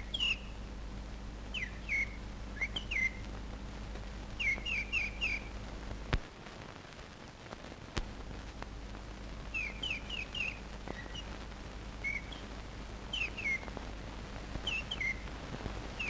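Nightingale singing: short phrases of three or four quick whistled notes, repeated every second or two. Beneath it are a steady low hum and hiss, with a sharp click about six seconds in and another about eight seconds in.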